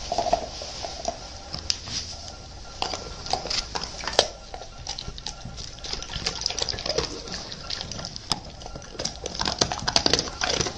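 German shepherd licking and mouthing at a treat close to the microphone: irregular wet smacks and clicks over a steady hiss.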